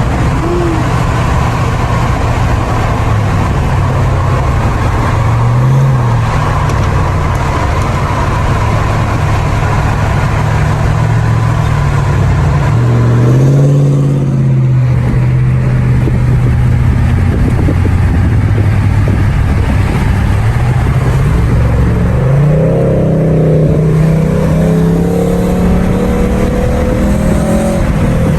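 Mercedes W124 E500's swapped M113 V8 engine and exhaust under way, the revs climbing and dropping several times, with heavy road and wind noise underneath.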